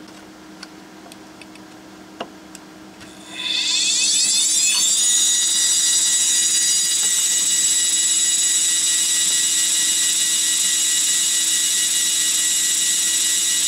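Opened HP MAP3367NC 10,000 RPM SCSI hard drive powered on with its lid off. After a few faint clicks, the spindle motor spins the platters up about three and a half seconds in, with rising whines that settle into a steady high-pitched whine. The heads stay parked with no seek attempt, which the owner puts down to a defective controller board and possibly defective motor bearings.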